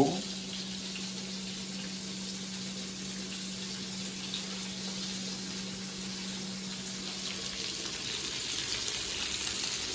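Butter sizzling steadily in a hot frying pan as chunks of braised beef shoulder are laid in to sear, the sizzle growing a little louder near the end. A steady low hum runs underneath.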